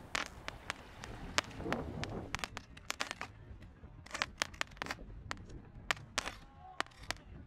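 Small fireworks bursting and crackling overhead: a run of sharp, irregular pops, several a second.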